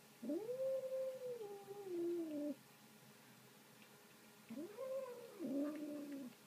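Kitten making its drawn-out 'nom' noise over a bit of meat: two long calls, each rising in pitch, holding, then sliding down, with the second starting about four and a half seconds in.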